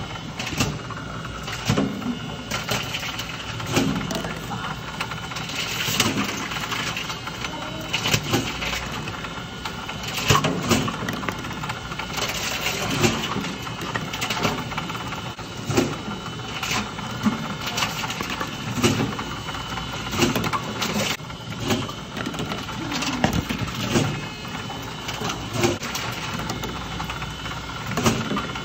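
Plastic drink bottles fed one after another into a reverse vending machine, each one clattering as the machine draws it in, about one every one and a half to two seconds, over the machine's steady hum.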